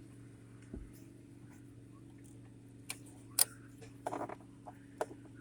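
Scattered small clicks and light taps from hands handling small parts, sharpest about three and a half seconds in, over a steady low hum.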